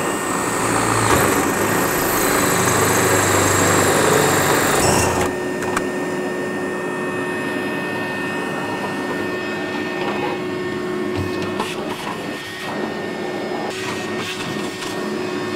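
A vacuum runs steadily throughout while a drill drives a metal hole saw through the van's sheet-steel panel for about the first five seconds, then the cutting stops. After that the vacuum runs on with a few light knocks.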